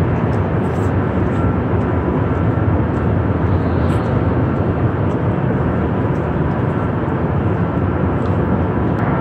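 Steady, loud rumble filling a metro station, with faint, quick footsteps going down concrete stairs.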